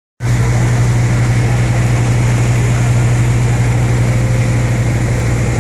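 Boat engine running steadily, a strong constant low hum over an even rushing noise.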